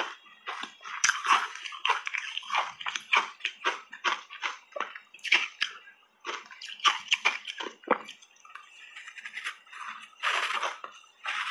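Close-miked wet chewing and lip smacking of a cupcake coated in matcha tea powder, a quick run of moist crackly clicks, with a louder, longer bite into the cupcake near the end.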